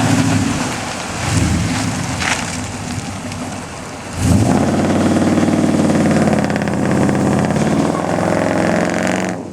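Dodge Ram's 5.7 Hemi V8 running at low revs through shorty headers, true dual exhaust and Dynomax Ultra Flow mufflers, then revving up sharply about four seconds in and holding a louder, steady pull for several seconds before easing off near the end. The owner judges it has no power.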